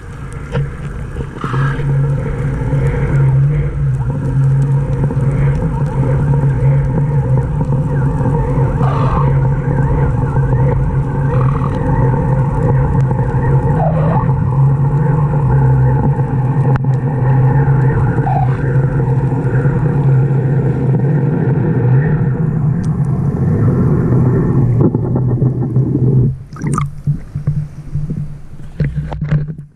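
A boat's outboard engine running steadily, heard as a low hum through the water by an underwater camera as it is raised, with a few short squeaky glides over it. About 26 seconds in, the camera breaks the surface and the hum gives way to choppy splashing water.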